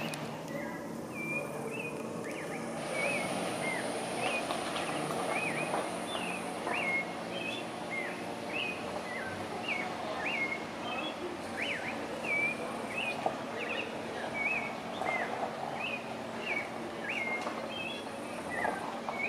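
A bird calling over and over, a short hooked chirp repeated roughly once or twice a second, over steady low background noise.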